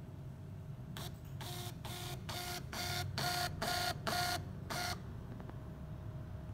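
Ri-5802DD portable Bluetooth thermal receipt printer printing a receipt: its paper feed runs in a quick series of short, evenly pitched whirring bursts for about four seconds, then stops.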